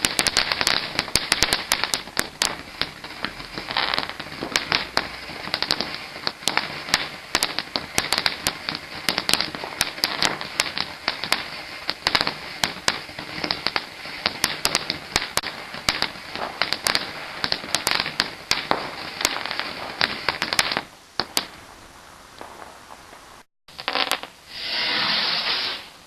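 Strontium fountain firework burning with a steady hiss and dense crackling pops for about twenty seconds, then dying out. After a short break, a second brief hiss sounds near the end.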